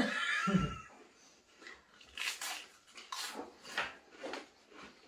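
Pringles crisps being crunched in the mouth, about two quick crunches a second, after a short loud sound at the very start.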